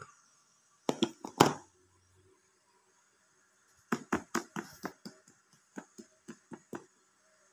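Round aluminium cake pan full of batter knocked against a hard counter: a few loud knocks about a second in, then a run of about a dozen quick taps, roughly four a second, growing fainter.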